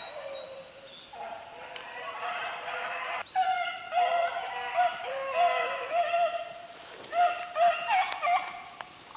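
Rabbit-hunting dogs baying in repeated drawn-out calls, several voices overlapping, growing louder about three seconds in. This is the pack giving tongue as it runs a rabbit's trail.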